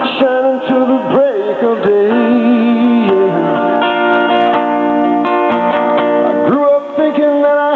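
Live guitar playing with a man singing over it: notes bend and hold, then ring out steadily through the middle.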